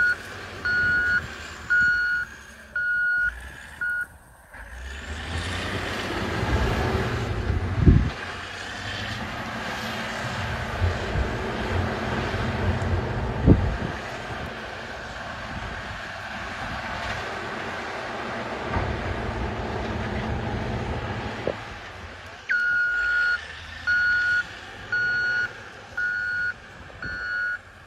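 Wheel loader's reversing alarm beeping about once a second, stopping about four seconds in and starting again near the end. In between, a loud, steady, noisy rumble of the machine working in the burning brush, with two sharp cracks.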